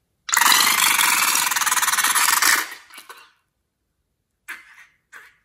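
Rubber balloon neck buzzing loudly in a rapid raspy flutter for about two seconds as its contents are squeezed out, then trailing off. Near the end come two short rubbery rustles as the emptied balloon is handled.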